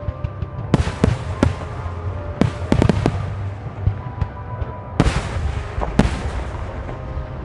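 A fireworks starmine barrage: shells bursting in sharp booms and bangs in quick clusters, with the heaviest bursts about five and six seconds in. Music plays underneath, the soundtrack the display is timed to.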